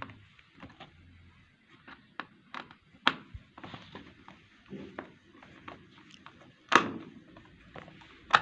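A screwdriver undoing a small screw on a washing machine's plastic control-panel housing: scattered clicks and knocks of metal tool on screw and plastic, the loudest knock about seven seconds in.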